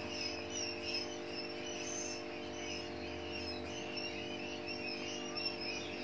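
Crickets chirping steadily in the background over a faint, steady low hum.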